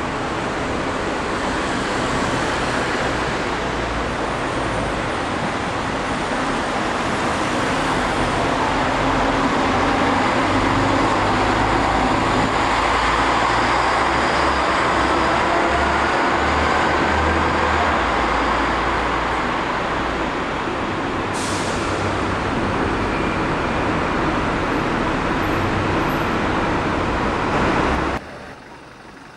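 Double-decker bus engine running as the bus drives off, heard inside an enclosed concrete bus station, with a brief high squeak about two-thirds of the way through. The sound cuts off suddenly near the end.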